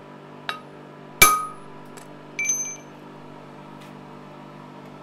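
Hammer striking a touch-mark stamp held on hot steel on an anvil: a light tap, then one hard blow about a second in with a ringing metallic clang, and a short cluster of ringing clinks a second later. A steady low hum runs underneath.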